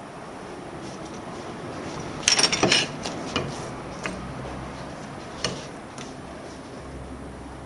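Metal kitchen utensils clinking and tapping around a plastic cutting board: a quick cluster of sharp clinks about two seconds in, then a few single taps, over a steady low room hum.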